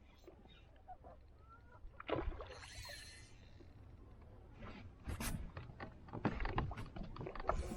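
Knocks and clicks of handling in a small boat, growing busier and louder over the last few seconds, with a brief rush of noise about two seconds in.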